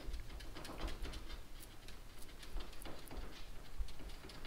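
Natural-bristle chip brush spreading wet epoxy along a wooden rail strip: soft, irregular swishing and scratching strokes.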